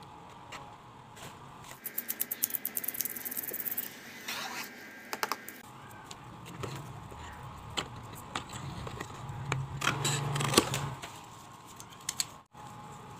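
Sketchbook paper being marked and cut: a run of rapid crisp clicks, then scattered clicks and a swell of paper rustling.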